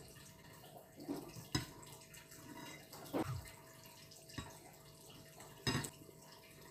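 Wet eating sounds of tom yum soup with fish head and prawn: short slurps and sucking smacks a second or so apart, one of them a falling slurp. A sharp click comes near the end, from the metal spoon against the glass bowl.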